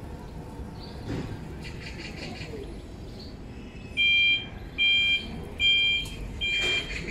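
Electric order picker's warning beeper sounding while the truck travels: from about four seconds in, a loud two-tone electronic beep repeats about every 0.8 seconds over a low, even background.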